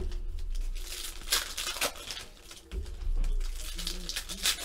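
Foil trading-card pack wrappers crinkling and being torn open by hand, with several sharp crackles.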